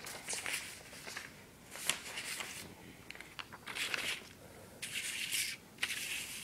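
Sheets of graph paper rustling and sliding as they are handled and laid over one another, in several short bursts with a few light ticks.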